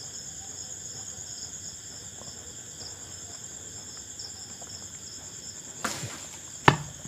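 Crickets chirping steadily in a high, pulsing trill, with two sharp knocks near the end, the second one loud.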